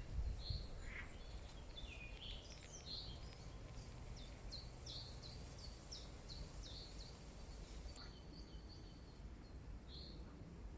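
Small birds chirping faintly, with a quick run of short high chirps in the middle and a few single chirps later, over a steady low outdoor rumble.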